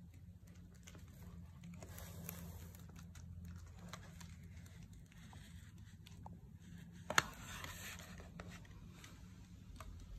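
Faint handling noise around a wooden rifle stock: scattered rustles, scrapes and light clicks over a steady low hum, with one sharp knock about seven seconds in.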